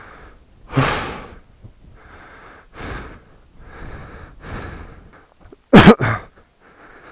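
A person breathing hard and out of breath after exertion, heavy breaths coming about once a second, with a loud, short vocal burst about six seconds in.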